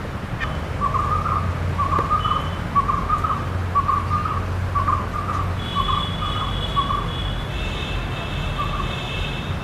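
A bird calling a short repeated note over and over, about one every 0.7 seconds, then pausing before two more calls near the end. A steady high-pitched whine joins in about six seconds in. A low rumble sits under it all.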